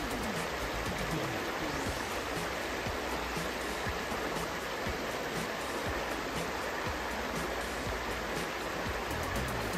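Stream flowing steadily over stones, a constant rush of water.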